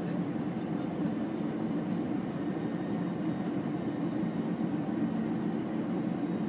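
Steady cabin noise of a jet airliner in flight: an even rush of engines and airflow with a low hum, unchanging throughout.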